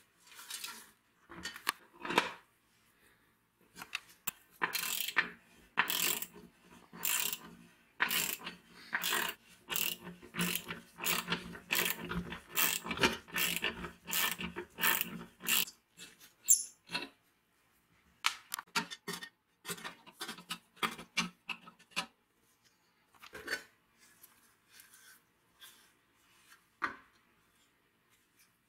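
Socket ratchet wrench clicking in steady strokes, about two clicks a second, as the screws holding the heater's metal base plate are undone. This is followed by scattered clicks and knocks as the metal parts are handled.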